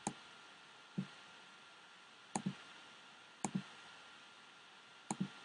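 Computer mouse button clicking, single clicks and quick pairs about a second apart, over a faint steady hiss.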